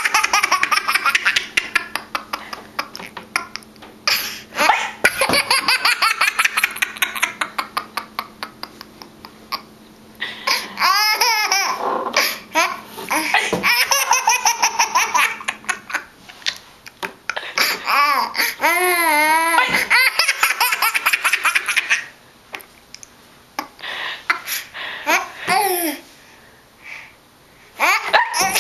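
Toddler laughing hard in long runs of quick, repeated belly laughs. A couple of wavering, high-pitched cries come between the runs.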